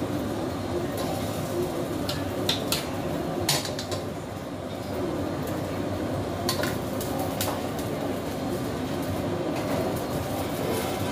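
Metal tongs and a wooden spatula knocking and clinking against a stainless steel frying pan, a handful of sharp clicks over a steady low rumble of kitchen noise.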